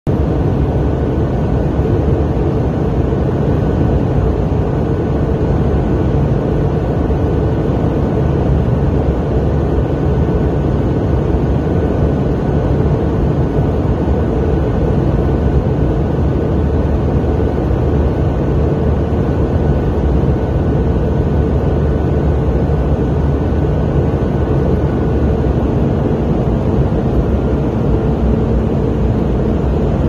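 Steady in-flight cabin noise of a jet airliner: a constant low engine and airflow roar, with a faint high whine and a low hum that comes in near the end.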